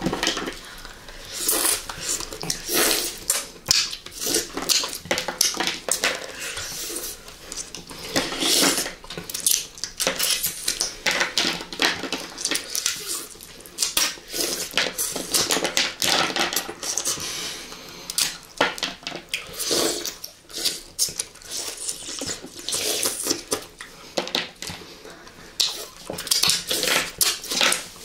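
Close-miked mouth sounds of candy being eaten: wet smacking, sucking and chewing, with many sharp sticky clicks coming in clusters separated by short pauses.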